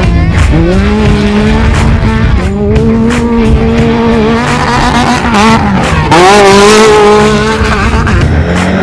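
Off-road race buggy engine at high revs: its pitch climbs, holds, dips briefly past the middle and climbs again. A loud rush of noise comes about six seconds in.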